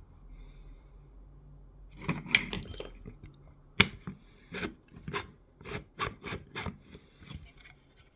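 Hands fitting 3D-printed plastic dock parts: a short scraping rub, a sharp click about four seconds in, then a run of short knocks and scrapes about two a second.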